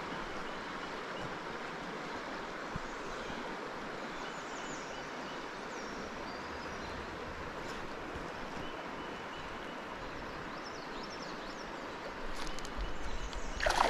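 Steady rushing of river water flowing over a shallow riffle, with a few faint high chirps. Near the end a burst of louder, irregular knocks and noise rises over the water.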